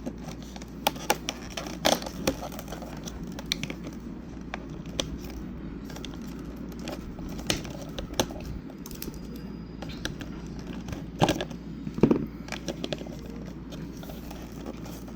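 Cardboard and plastic packaging handled by hand as a calendar box is opened: scattered crinkles, scrapes and light taps, with a few louder knocks about two seconds in and again about eleven and twelve seconds in, over a low steady hum.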